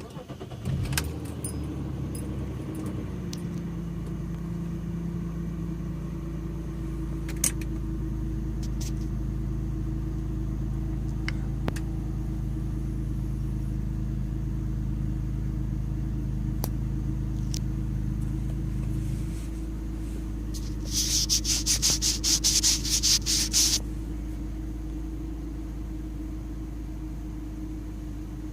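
BMW E46 330i ZHP's 3.0-litre straight-six starting with a brief crank and then idling steadily. The idle note changes about two-thirds of the way through, and a rapid high rattling sound runs for about three seconds near the end. The owner calls the idle mildly rough, and the car is logging lean codes on both banks (P0171/P0174).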